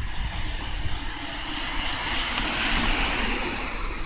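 An aircraft passing over: a rushing engine noise that swells to a peak about three seconds in and then begins to fade.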